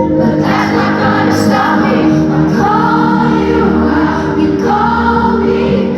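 A live pop song: a female singer's sustained vocal over band accompaniment, with a choir-like fullness to the singing.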